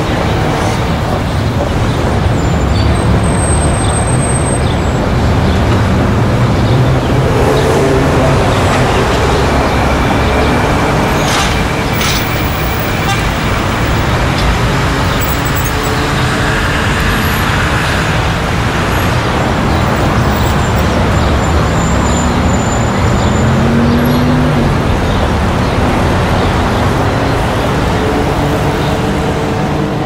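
Busy city street ambience: steady traffic noise with motor vehicle engines running and passing. One engine rises in pitch briefly about two thirds of the way through.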